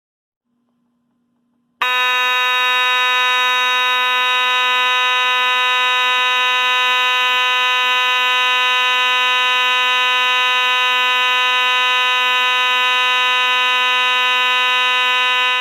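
Simplex 2903-9101 mechanical fire alarm horn sounding continuously: a loud, steady, buzzy blare with no breaks. It starts abruptly about two seconds in and cuts off at the end.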